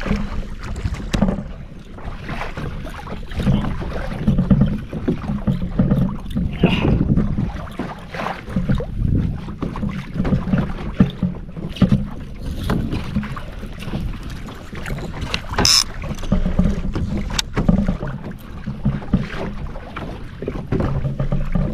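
Water sloshing and lapping against a kayak hull, with wind on the microphone and a few sharp clicks of gear being handled in the boat, two of them near the end.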